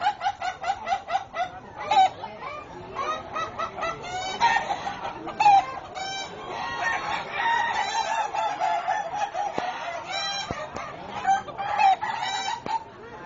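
Several roosters crowing at once and overlapping, each crow broken into rapid short cough-like syllables, the 'batuk' crowing style judged in Indonesian chicken contests.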